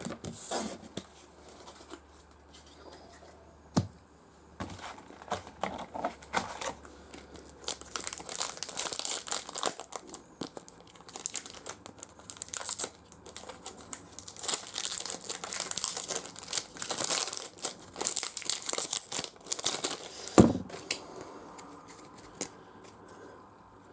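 Foil trading-card pack wrapper being torn open and crinkled by hand for some fifteen seconds, with a soft thump near the end.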